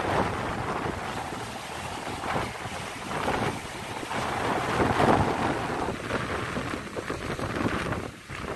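Small sea waves breaking and washing over shoreline rocks, a rushing surf that swells and eases in irregular surges, loudest about five seconds in.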